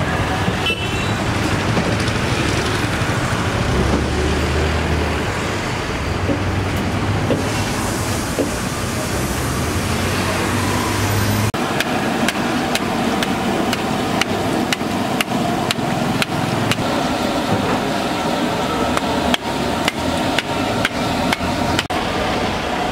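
Kachoris deep-frying in a large iron kadhai of hot oil with a steady sizzle. From about halfway through, a metal slotted ladle clinks and scrapes against the pan many times as the kachoris are turned.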